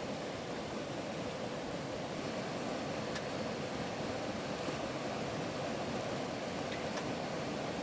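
Steady, even rushing noise with a few faint ticks.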